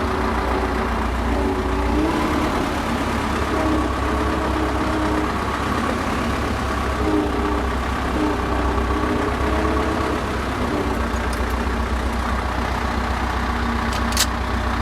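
YuMZ tractor's diesel engine running as the tractor moves off in third gear, with a knock from the gearbox that appears only under load; a few sharp knocks stand out near the end. The owner suspects a damaged gear.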